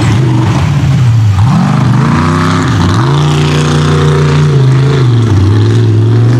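Mud racing super truck's engine revving hard, the revs dropping and climbing back twice in quick succession, then held high before easing down near the end.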